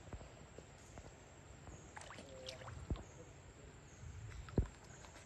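Water splashing and sloshing, with two sharp thuds about three and four and a half seconds in.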